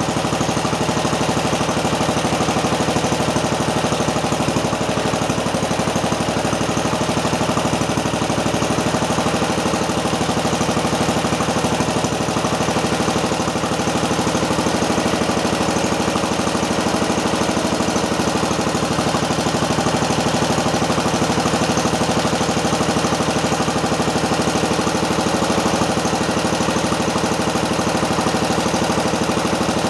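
1961 Cub Cadet Original garden tractor's single-cylinder Kohler engine idling steadily, still warming up after a cold start.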